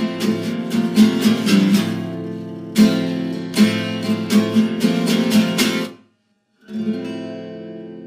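Acoustic guitar strumming chords in a rhythmic pattern. It cuts off abruptly about six seconds in, then resumes with softer ringing chords.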